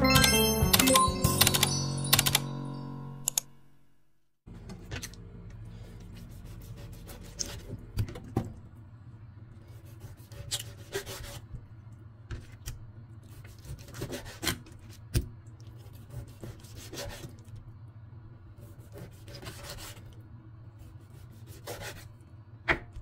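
A large kitchen knife cuts raw pork on a plastic cutting board, giving irregular sharp knocks of the blade against the board over a low steady hum. A chiming intro jingle fades out in the first few seconds.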